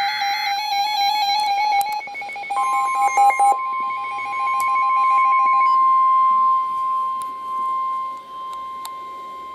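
Weather radios going off for a severe thunderstorm warning. At the very start comes the tail of the screeching EAS digital header burst. For the first few seconds several radios' alert alarms beep and warble together. From about two and a half seconds in, the long steady NOAA Weather Radio warning-alarm tone sounds.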